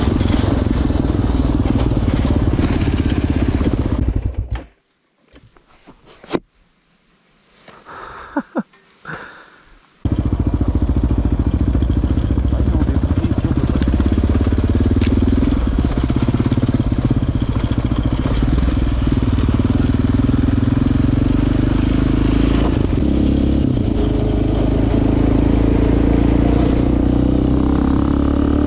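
Quad (ATV) engine running steadily under way. About four seconds in the sound drops suddenly to near quiet with a few clicks, and the engine comes back abruptly about six seconds later.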